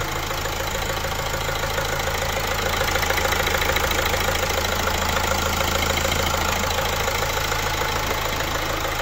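Opel Insignia 1.6 diesel engine idling steadily with an even, fast ticking, running on a newly replaced timing chain.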